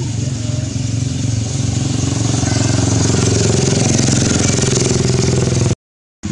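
An engine running steadily, growing louder from about halfway through. The sound drops out completely for a moment near the end.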